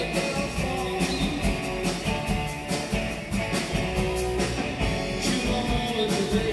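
A live rock and roll band of electric guitars, bass guitar and drums playing at a steady driving beat. This stretch is mostly instrumental, with little or no singing.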